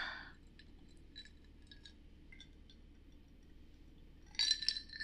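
Ice clinking and ringing against the side of a glass of highball as it is lifted to drink, near the end. There is a short rush of noise at the start and faint small clicks between.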